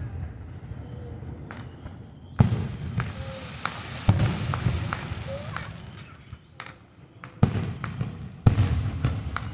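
Fireworks shells bursting overhead: four loud booms spaced a second or more apart, each trailing off in a low rumbling echo, with smaller pops and crackles between them.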